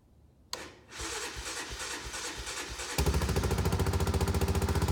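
A click, then an engine cranking on its starter for about two seconds before it catches about three seconds in and runs steadily. It is a cold start on an old, weak battery that had to be charged after sitting in the cold.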